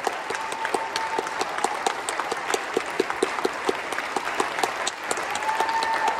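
Audience applauding: dense, steady clapping. A held high call rises over the clapping near the end.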